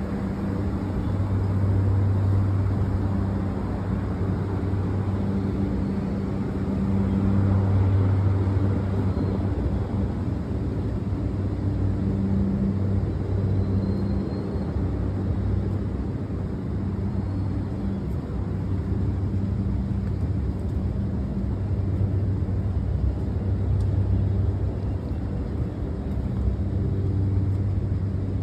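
A steady low mechanical hum over a rumble, swelling and easing slowly.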